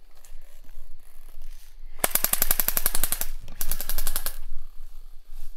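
Airsoft gun firing two rapid full-auto bursts of quick, evenly spaced shots, the first about two seconds in and lasting just over a second, the second a moment later and shorter.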